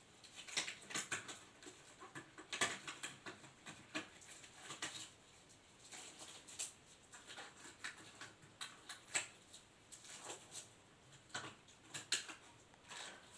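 Irregular light clicks, taps and rustles of small objects being picked up, handled and set down, as nursing equipment is laid out.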